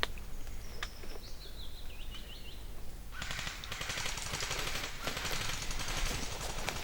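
A bird gives a short run of chirps, then about three seconds in an airsoft electric gun fires a long full-auto burst, a rapid even rattle lasting several seconds.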